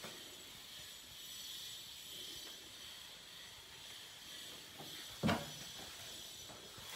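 Faint steady hiss of an empty room's air, with one sharp knock about five seconds in and a softer tap just before it.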